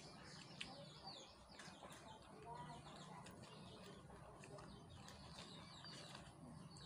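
Near silence, with faint bird chirps in the background and soft rustling and clicking of a banana leaf being unwrapped from food.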